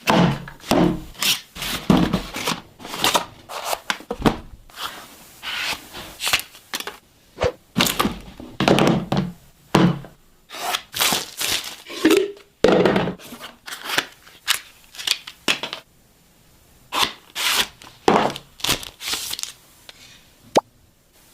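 Phone packaging being handled during an unboxing: a long, irregular series of short knocks, scrapes and rubs as box parts are opened, lifted and set down.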